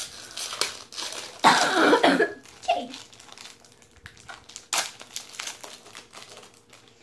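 Foil trading-card pack wrappers crinkling and cards being handled, many small rustles and clicks. A person coughs once about one and a half seconds in.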